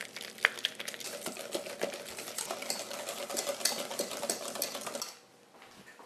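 Wire whisk beating cream cheese and mayonnaise in a stainless steel bowl: rapid clicking and scraping of the wires against the metal, stopping about five seconds in.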